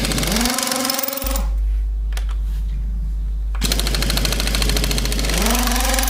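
Impact wrench hammering on a car's wheel nuts to undo them, in two runs with a pause of about two seconds between; each run has a rising whine as the tool spins up.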